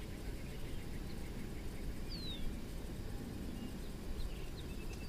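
Faint bird calls: scattered short chirps and one high call sliding downward about two seconds in, over a low steady outdoor rumble.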